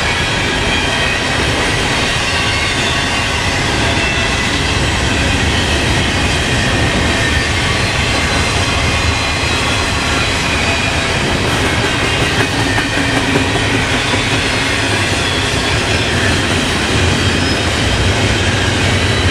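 Intermodal freight train rolling past: a steady, loud noise of steel wheels on rail that holds the same level throughout.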